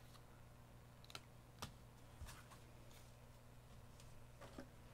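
Near silence: room tone, with a few faint, short clicks.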